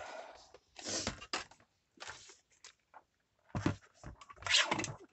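Paper being handled, with irregular rustling and crinkling in short bursts, the strongest about a second in and near the end.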